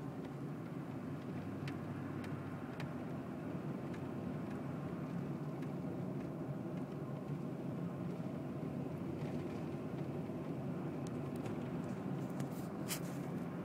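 Steady engine hum and tyre rumble heard from inside the cab of a vehicle driving on a snow-covered road, with a few faint clicks.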